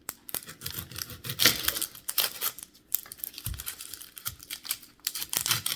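Dry, papery onion skin crackling and tearing as a yellow onion is handled and readied for cutting, in quick irregular crackles, with a dull thump about three and a half seconds in.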